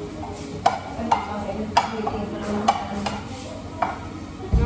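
A spatula stirring garlic in hot oil in a frying pan, knocking sharply against the pan several times over a steady sizzle.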